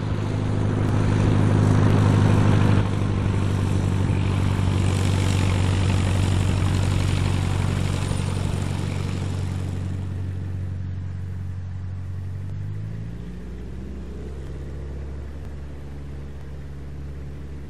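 Cessna 120's air-cooled four-cylinder engine and propeller running as the plane moves close past on the ground and then rolls away. It is loudest in the first few seconds, drops a step about three seconds in and fades slowly, with the engine note rising slightly about thirteen seconds in.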